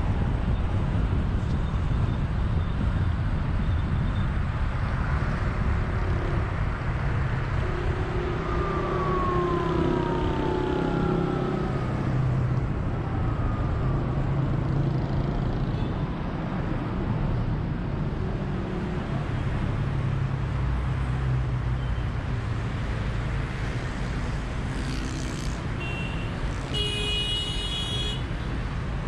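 Steady road and traffic noise of a car driving along a multi-lane expressway, with other vehicles passing. A brief high-pitched tone sounds near the end.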